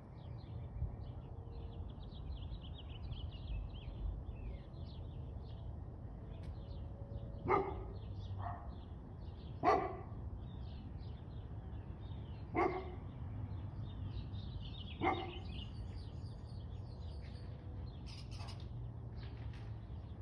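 Steady background chorus of small birds chirping. Five short, loud cries stand out over it, spaced a second or two apart, between about seven and fifteen seconds in. A low, steady rumble runs underneath.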